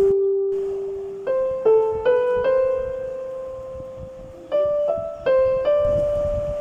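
Background piano music: single notes struck one after another, each ringing and slowly fading.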